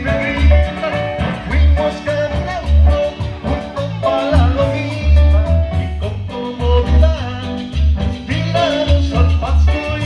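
Latin band music from a Mexican regional group: a pulsing bass line under a bright melody.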